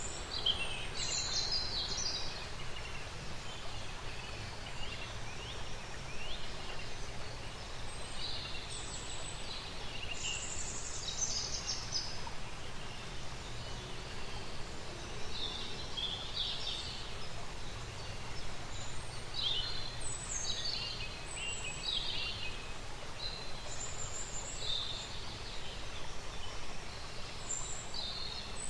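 Outdoor nature ambience: songbirds chirping and twittering on and off, over a steady low background rumble.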